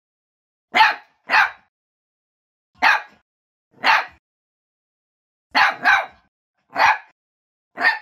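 A puppy giving eight short, sharp barks, some in quick pairs, while crouched in a play bow: playful barking to invite play.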